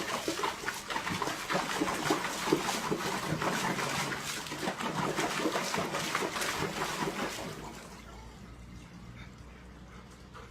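Water splashing with rapid irregular wet clicks, dying down about eight seconds in.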